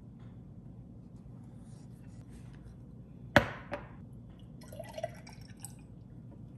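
Milk pouring from a carton into a glass jar, the glass filling with a slightly rising tone. Just before it, a sharp knock with a short ring, the loudest sound.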